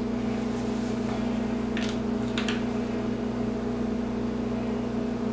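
Steady mechanical hum of a running kitchen appliance or fan, with two short clicks about two seconds in.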